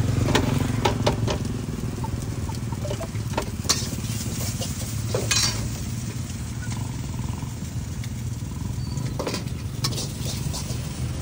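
Food sizzling in a wok as it is stir-fried, with a metal spatula scraping and clacking against the pan several times over a steady low rumble.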